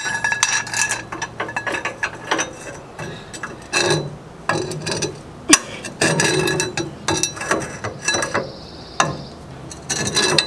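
Irregular metallic clicks and clanks of a wrench and long steel cheater bar shifting and grinding on a seized pitman arm nut as it is heaved on, with a brief high squeak a little past eight seconds in.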